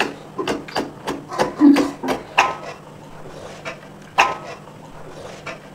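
Close-miked eating sounds: a quick, irregular run of mouth clicks, smacks and slurps, thickest in the first two and a half seconds, with one loud smack a little past four seconds.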